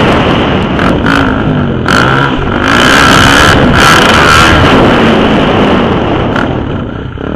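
Suzuki DR-Z400's single-cylinder four-stroke engine, heard from the rider's helmet, revving up and down over and over as the throttle is worked over the jumps, easing off near the end.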